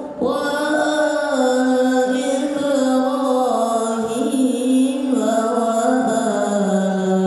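A young man chanting an Islamic religious recitation solo into a microphone, in long held notes that slide and waver from pitch to pitch.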